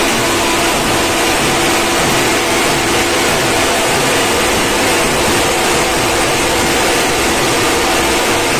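Drums beaten with sticks and crowd noise from a street procession, overloaded into a dense, steady, distorted din.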